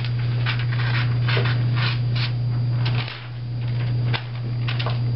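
Scissors cutting through a paper map: a string of short, irregular snips with paper rustling, over a loud steady low hum.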